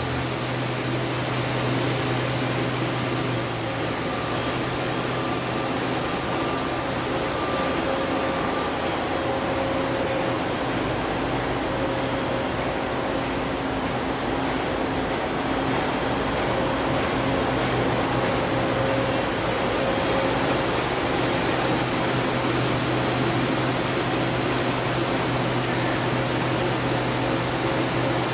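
2006 Doosan Daewoo Puma 2000SY CNC lathe running, its main spindle and chuck spinning: a steady mechanical hum with a faint tone that comes and goes.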